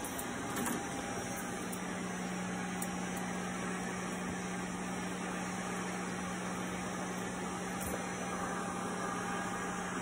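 Powered air-purifying respirator blower running, pushing air through the hood: a steady hiss of airflow over a constant low hum.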